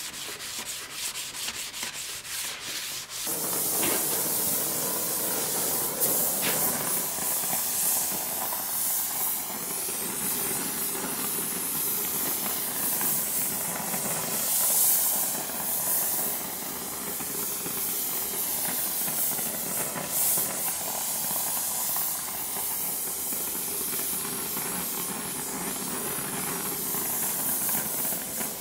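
Quick hand-sanding strokes on the steel blade for about three seconds, then the steady hiss of a gas welding torch flame playing along a 5160 spring-steel sword blade to heat it and draw its temper.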